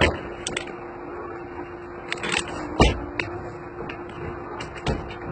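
Handling noise from a phone carried while walking: a few irregular light clicks and knocks, the sharpest just after the start and about three seconds in, over a faint steady hum.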